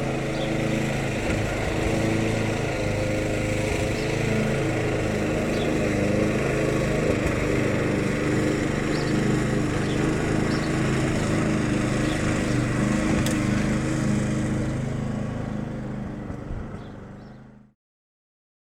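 A machine's motor running with a steady hum of several pitched tones over a rushing noise. It dies away over a few seconds near the end, then stops abruptly.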